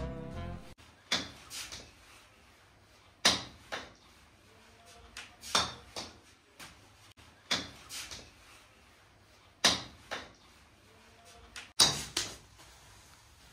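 A series of sharp bangs, one about every two seconds, some with a lighter second knock just after.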